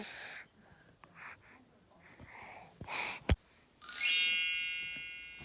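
A bright metallic chime about four seconds in: many high ringing tones that start at once and die away slowly over about a second and a half. Before it come a few soft rustles and a sharp click.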